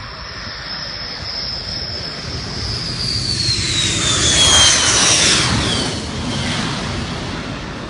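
Fighter jet's engine running on a motorway landing strip. Its noise swells as the jet passes close by about four to five seconds in, then fades, with a high whistle falling steadily in pitch as it goes by.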